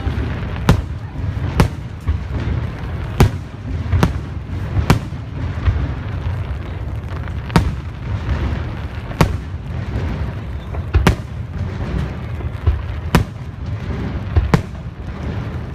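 Fireworks finale: a rapid run of sharp bangs, roughly one a second, over a continuous low rumble of shells bursting.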